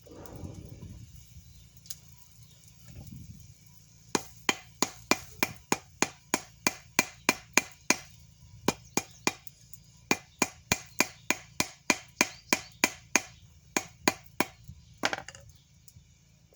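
Hand hammer striking fluxed, hot steel on an anvil to forge-weld it: a steady run of blows, about three a second, each with a short metallic ring, starting a few seconds in and ending with one last blow near the end.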